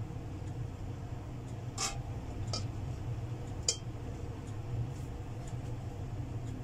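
Three light metal clinks as a stainless-steel wok on the stovetop is handled, about two seconds in, then two and a half, then near four seconds, over a steady low hum.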